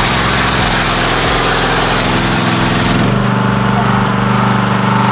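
A small engine running steadily, its note shifting about three seconds in.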